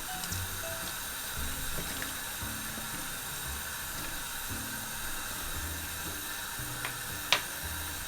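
Duck curry simmering in the pot on medium-high heat, a steady bubbling hiss, under light background music; a single sharp click about seven seconds in.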